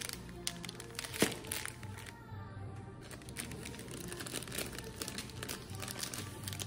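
Plastic ice cream bar wrappers crinkling as they are handled, with one sharp crackle about a second in, over background music.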